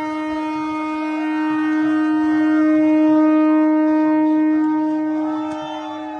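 Train horn sounding one long, steady note, swelling about halfway through and easing off near the end, with a crowd shouting under it.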